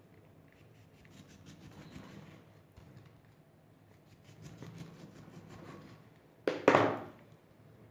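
Kitchen handling sounds while salted lemon quarters are prepared and packed into a jar: soft rubbing and light ticks, then a loud double knock about six and a half seconds in.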